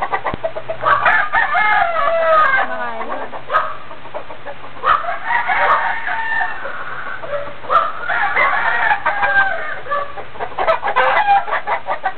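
Chickens clucking, with roosters crowing over them in long drawn-out calls about a second, five seconds and eight seconds in; several birds call over one another.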